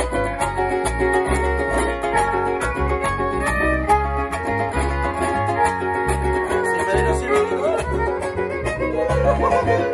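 Live instrumental huapango from a huasteco string trio: a violin carries the melody over strummed guitars, with a steady rhythmic bass pulse and no singing.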